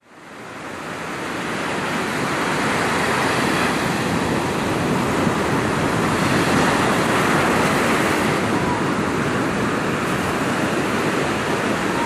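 Rough surf breaking and washing up a sandy beach, a steady rushing noise that fades in over the first couple of seconds.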